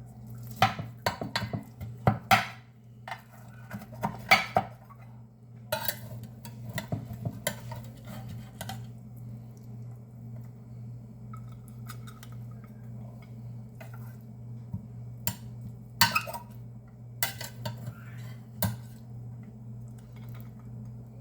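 Cutlery clinking, knocking and scraping against a casserole dish as a baked casserole is cut. The taps come in clusters: in the first few seconds, again from about six to nine seconds in, and from about fifteen to nineteen seconds in, over a steady low hum.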